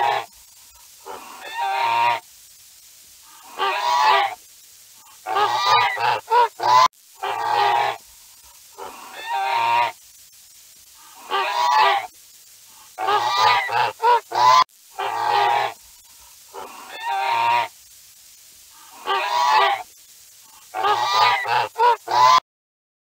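Goose honking: about a dozen bouts of loud honks, each a second or less, with pauses of about a second between them. The calls stop shortly before the end.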